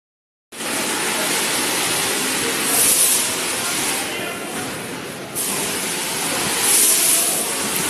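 Loud, steady rushing hiss inside a metro station, with indistinct voices mixed in. It swells twice into a sharper high hiss.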